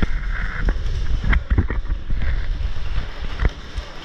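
Low rumble of movement and gear rubbing against a helmet-mounted camera, broken by several sharp clicks and knocks, a sharp one about three and a half seconds in.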